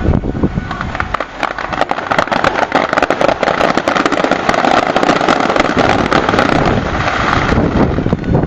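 Fireworks display: a thump, then a dense, fast crackling with a hissing rush that swells for several seconds and fades near the end, over low booms.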